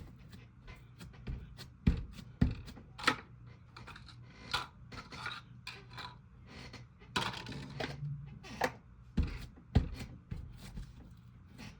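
Slime being squished and poked by hand: irregular sticky clicks and pops with a few sharper snaps.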